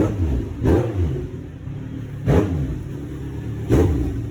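2003 Kawasaki Z1000's inline-four engine idling and blipped on the throttle four times, each rev shooting up and dropping straight back to idle.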